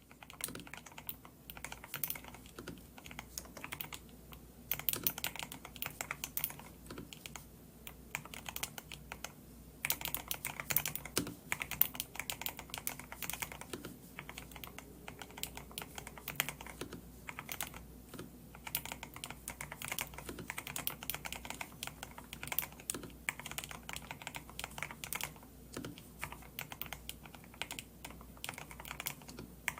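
Typing on a DAREU A104 Pro 8K mechanical keyboard fitted with Gateron Silver switches and clear keycaps: a continuous stream of key clacks in uneven runs, busier in a few stretches.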